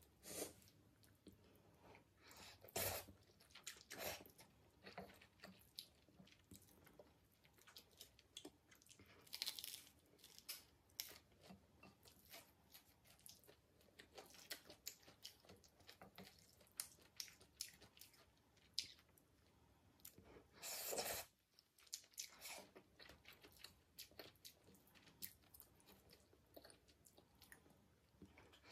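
Close-miked eating sounds: chewing a mouthful of spicy black bean ramen noodles, with many short clicks of wooden chopsticks against a ceramic bowl and a few louder bursts of noise.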